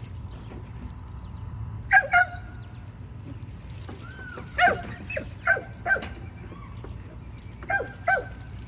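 Dog yipping in short, high barks: a quick pair about two seconds in, several more spaced through the middle, and another pair near the end.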